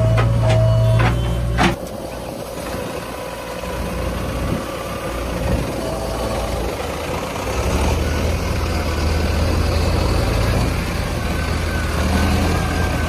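Heavy diesel engine of a backhoe loader or tractor running steadily, with a few sharp metallic knocks in the first two seconds. It drops in level about two seconds in and comes up louder again about eight seconds in.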